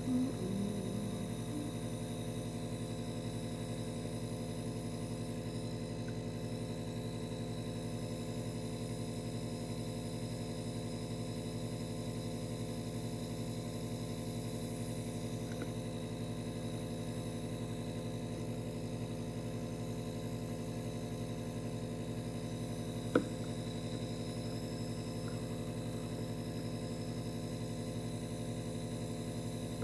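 Steady droning hum of many fixed tones, unchanging throughout, with one sharp click about three-quarters of the way through.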